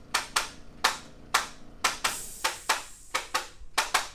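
Rapid series of sharp clicks during a chiropractic ear adjustment, about two to three a second and often in close pairs, with a brief hiss about two seconds in.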